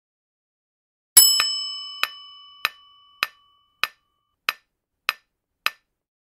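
Quiz sound effects: a bright bell-like chime about a second in that rings on and fades over about two seconds, then a countdown timer ticking steadily, a little under two ticks a second, seven ticks in all.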